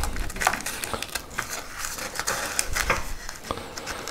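Hands handling a brown-paper-wrapped cartridge bundle in a wooden box: irregular paper crinkling with small clicks and taps.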